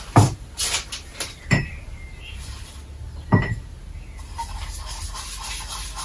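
Several knocks and clinks of a paint bowl being handled and set down: a cluster in the first second and a half, then one more about three seconds in, two of them with a short ringing tone.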